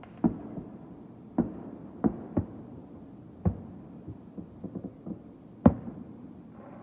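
Fireworks bursting in an irregular series of booms, about half a dozen, with a quick cluster of smaller crackling pops in the middle. The loudest boom comes a little before the end.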